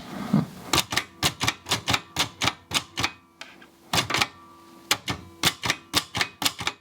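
Typing: keys struck one at a time in quick runs of sharp clacks, about three or four a second, with two short pauses, stopping abruptly at the end.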